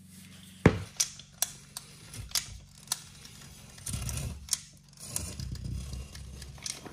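Manual caulking gun being worked: a run of about six sharp metallic clicks in the first three seconds, then handling noise and rustling as it is run along the wall's bottom plate under plastic vapor-barrier sheeting.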